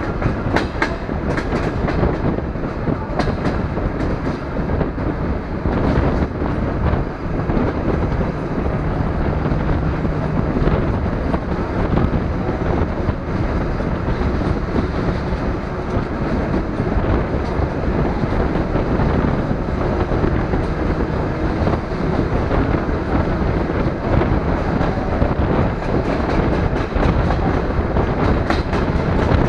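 DR1A diesel multiple unit running along the line, heard through an open carriage window: a steady rumble of wheels on rail, with clusters of clicks as the wheels cross rail joints near the start, about six seconds in, and again near the end.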